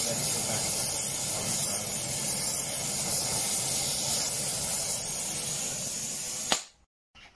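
Gas torch flame hissing steadily as it heats the clamped body of a bent Record 010 rebate plane, warming the metal just enough to soften it for straightening. About six and a half seconds in the torch is shut off with a sharp pop, and the hiss stops abruptly.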